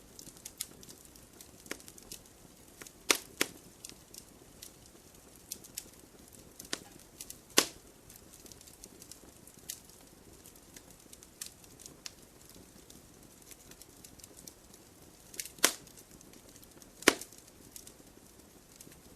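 Campfire burning, crackling: a steady low hiss of flames with scattered sharp pops and snaps of burning wood, half a dozen of them much louder than the rest.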